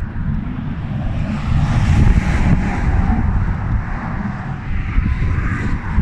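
Wind buffeting the microphone with a heavy low rumble, while a truck passes on the bridge roadway, its tyre and engine noise swelling about a second or two in and fading away.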